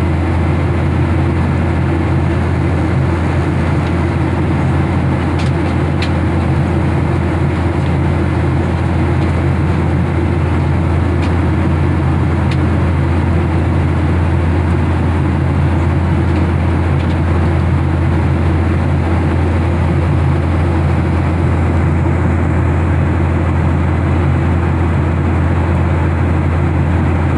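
Steady cabin noise of a jet airliner in climb: a constant low drone with an even rush above it, unchanging throughout.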